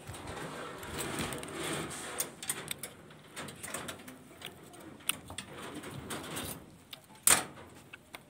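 Steel reinforcing bars and binding wire on a slab's rebar mesh clinking and rattling as they are handled, in scattered light clicks, with one sharp, loud knock about seven seconds in.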